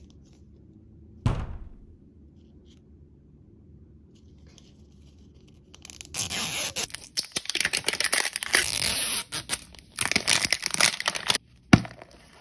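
Printed plastic wrap being peeled and torn off a toy ball with dense crinkling, starting about halfway through, after a single knock about a second in. Near the end a sharp click as the plastic ball capsule is snapped open.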